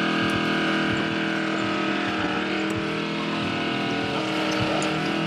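An engine running steadily at a constant speed, with an even hum that holds one pitch.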